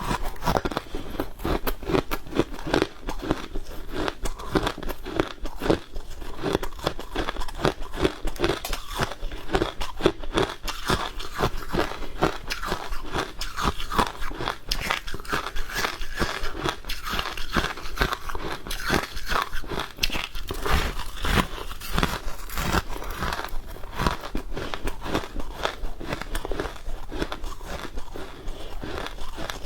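Close-up crunching and chewing of freezer frost, a fast run of crisp, crackly bites without a pause.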